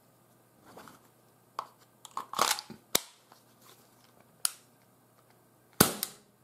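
Handling clicks and knocks of an Umarex CPS CO2 air pistol as its CO2 cartridge holder is fitted back into the grip. There are a few separate sharp clicks, a short rushing scrape about two and a half seconds in, and the loudest snap near the end, followed quickly by a second click.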